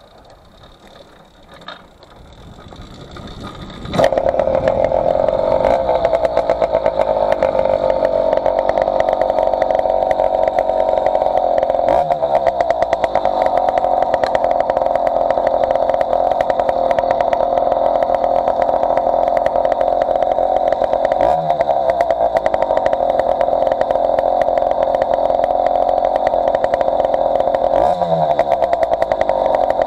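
Two-stroke motorized-bicycle engine kit (AF80 crank, 49 mm cylinder) comes in abruptly about four seconds in and then runs steadily under load, with a rapid firing buzz. Three times the revs drop briefly and climb back as the throttle is eased off and reopened. The engine is running on two stacked base gaskets, a setup the owner found cost it power.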